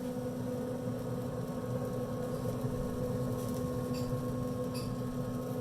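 A steady machine hum with a low drone, a few faint ticks over it past the middle.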